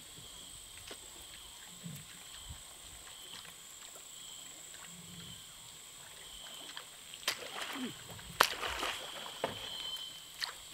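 Steady high-pitched drone of insects over a lake shore, with several sharp clicks and knocks from about seven seconds in.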